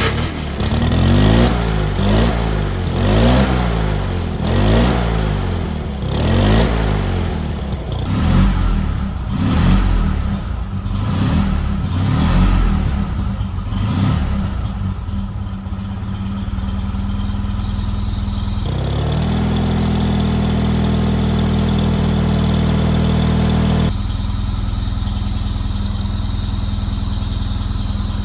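Classic Fiat 500's small air-cooled two-cylinder engine revved repeatedly, rising and falling in pitch about every two seconds, then settling to a steady idle. Later the idle holds at a higher speed for several seconds before dropping back to a lower idle.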